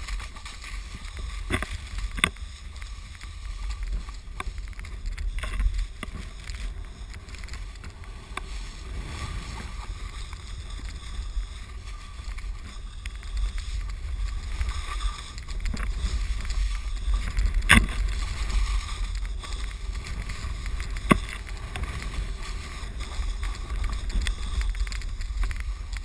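Snowboard sliding and scraping over snow, swelling and fading through the turns, with low wind rumble on the action camera's microphone. A few sharp knocks stand out, the loudest a little past the middle.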